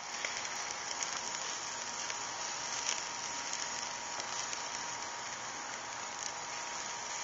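Iguana meat sizzling and crackling on a charcoal grill, its juices dripping onto the hot coals.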